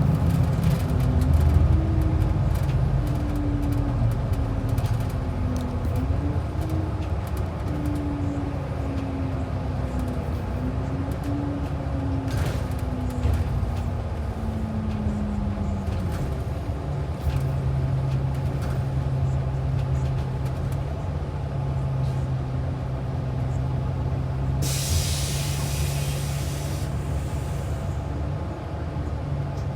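Inside a transit bus: the engine's pitch rises and falls as it drives, then drops about halfway through and settles to a steady idle. A burst of compressed-air hiss from the bus's air brakes lasts about two seconds, a little after two-thirds of the way through.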